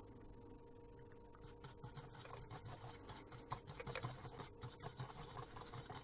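Faint, rapid, irregular scratching of a small brush scrubbing dirt off a phone's circuit board, starting about a second and a half in. Under it runs a steady faint electrical hum.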